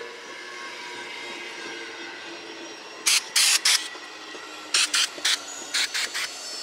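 Amtrak passenger cars rolling past, with a steady noise of wheels on rail. From about halfway, a series of short, loud hissing bursts cuts in, a few tenths of a second each, in clusters.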